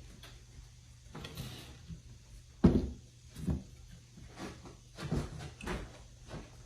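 A series of irregular knocks and short scrapes from kitchen utensils against a bowl and baking pan as brownie batter is poured and scraped into the pan, the loudest knock about two and a half seconds in.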